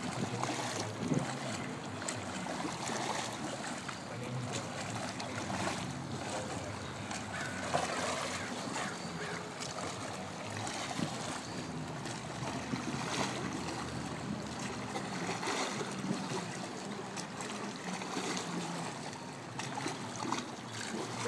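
Water splashing and churning from a swimmer doing combat sidestroke: arm pulls and scissor kicks stirring the surface, with irregular splashes on top of a steady wash.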